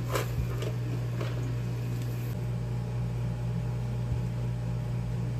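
Steady low hum throughout, with a few brief rustles and clicks in the first second and a half as a roll of thermal labels is seated in a label printer and its end fed through.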